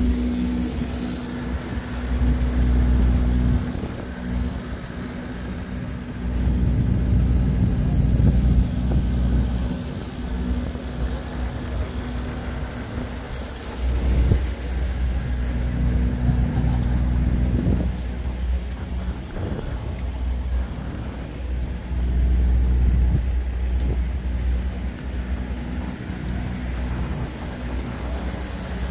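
Low, steady rumble of vehicle engines, swelling and easing every few seconds with gusts on the microphone.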